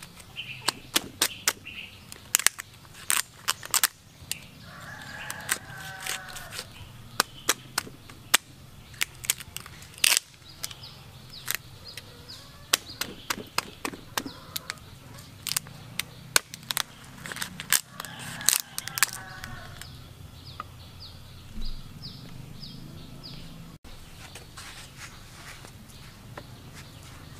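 Rapid, irregular sharp clicks and knocks, dozens of them, thinning out in the last third, over a faint low hum.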